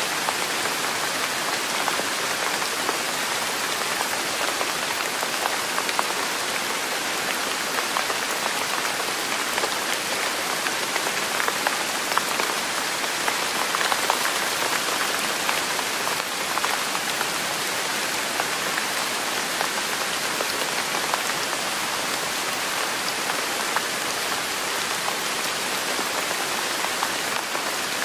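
Steady rain falling on a hard surface: an even hiss with many small scattered drop taps, unchanging throughout.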